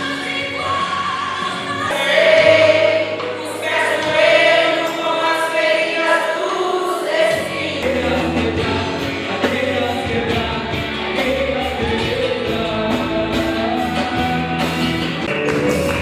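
Gospel music with group singing, voices holding long notes; about halfway through, drums come in with a steady beat.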